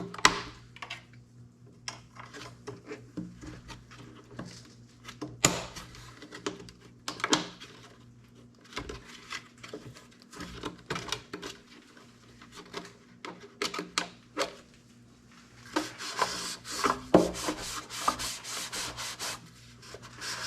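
Hand scrubbing and wiping of dusty tractor parts, with scattered clicks and knocks as the parts are handled; a denser run of quick, scratchy scrubbing comes near the end.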